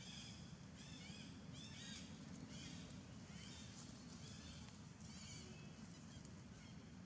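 Faint series of short, high chirping animal calls, each rising and falling in pitch, about two a second, stopping about five seconds in, over a low steady background rumble.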